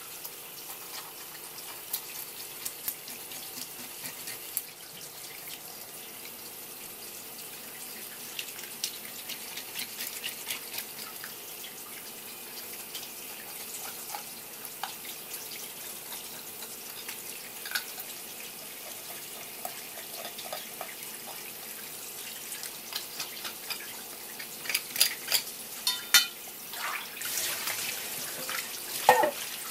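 Tap water running steadily from a hose onto a longtooth grouper head as it is rinsed and scraped with a knife, with scattered small clicks and scrapes. Near the end come several louder knocks and a brief metallic clink, as a metal bowl is handled under the stream.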